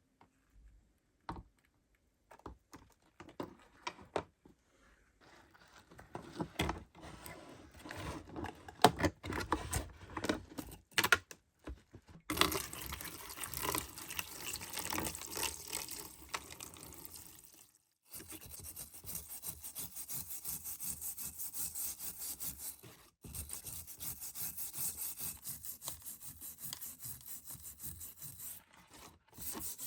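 Scattered knocks and clinks as the rusty iron axe head is handled. About twelve seconds in, fast back-and-forth scrubbing of the rust begins, running steadily with two short pauses.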